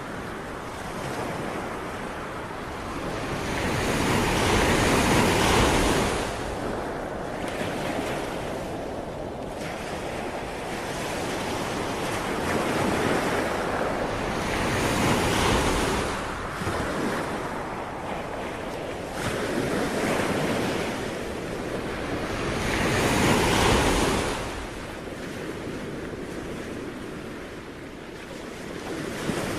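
Ocean waves breaking and washing on the shore, swelling to a louder crash about every eight to ten seconds, with a steady hiss of surf between them.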